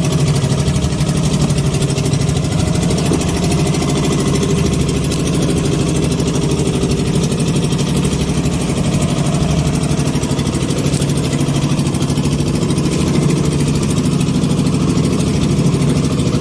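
Small fishing boat's engine running steadily at a constant speed.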